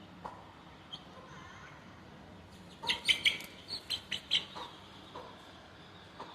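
Aseel gamefowl giving a quick run of about eight short, sharp clucks and calls, starting about three seconds in and lasting about a second and a half, over faint steady background.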